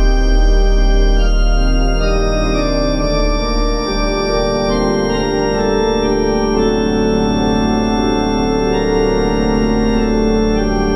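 Organ with two manuals and pedals playing sustained full chords that change every second or two over a low pedal note held underneath.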